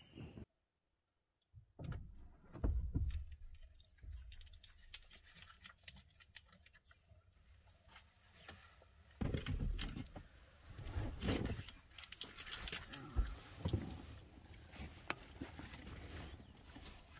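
Handling noise of a person getting into a car seat: rustling with irregular clicks and dull thumps, the heaviest bumps a couple of seconds in and again about halfway through.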